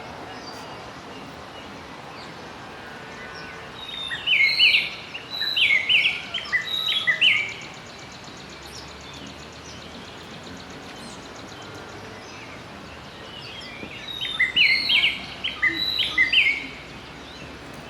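A bird singing two phrases of rapid, loud chirping notes, each about three seconds long and about ten seconds apart, over steady outdoor background noise.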